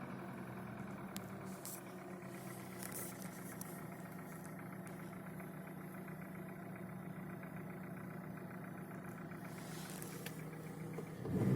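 Hyundai Solaris petrol engine idling cold, with a fast, even knocking in its running, and a brief rev near the end. The knocks are the owner's cold-start complaint: clear when it is below 10 °C outside, gone only when driving under load.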